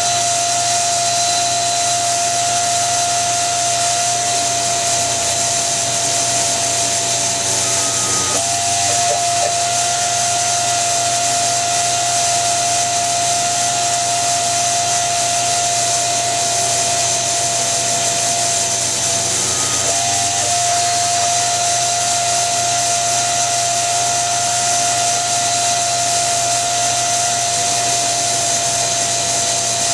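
CNC-converted X2 mini mill's spindle running steadily under power, drilling an aluminium part, with a constant whine over a steady hiss. The whine changes briefly twice, about eight seconds in and again near twenty seconds.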